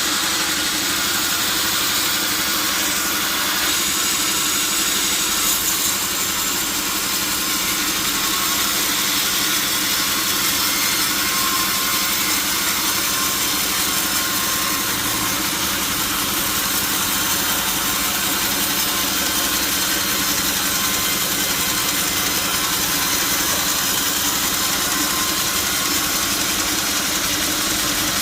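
Sawmill band saw running steadily, giving an even mechanical hum and hiss.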